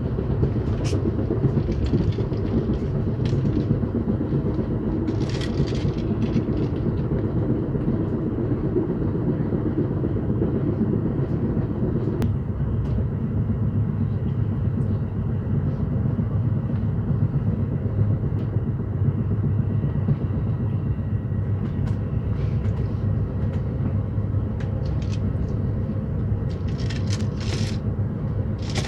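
Amtrak Empire Builder passenger train rolling along the track, a steady rumble with brief clicks and rattles now and then, thickest near the end. The rumble's middle turns a little quieter about twelve seconds in.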